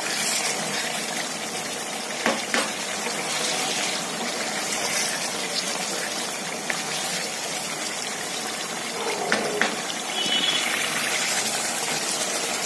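Chicken and potato curry bubbling and sizzling steadily in a nonstick pan on high heat while it is stirred with a wooden spoon, with a few light knocks of the spoon against the pan about two seconds in and again near nine seconds. The gravy is being cooked down so the masala fries (bhunai).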